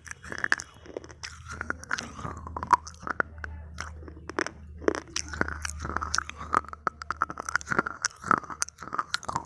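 Slate pencils being bitten and chewed close to the microphone: a dense, irregular run of sharp, hard crunches.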